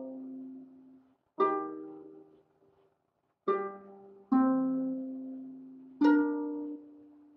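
Small wooden lap harp played slowly by hand: four separate plucks a second or two apart, each left to ring and die away.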